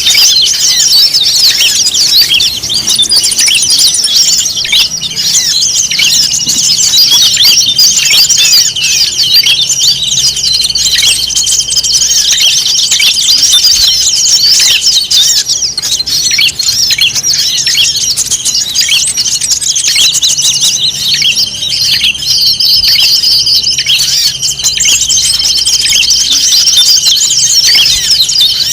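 A dense chorus of many small songbirds chirping and twittering over one another: a 'burung ribut' bird-lure mix played to draw wild birds in. A steady high tone holds underneath for most of it, dropping out for a few seconds past the middle.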